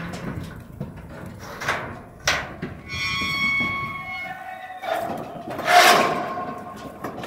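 Steel stock trailer's gates and panels clanking, with a metal gate squealing for about a second midway and a louder ringing clang near the end.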